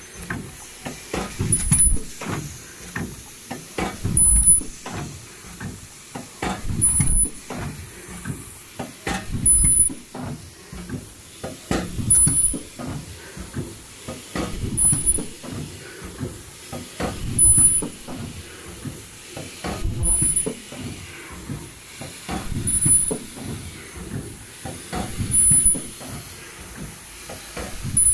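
Automatic folding-mask machine with valve welding running in its production cycle: pneumatic cylinders clacking and venting air in a busy, repeating rhythm, with a short high-pitched tone recurring about every two and a half seconds.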